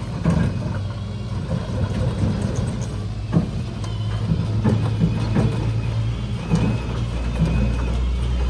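Rollback tow truck's engine running steadily, with scattered knocks and clanks; a deeper drone sets in near the end.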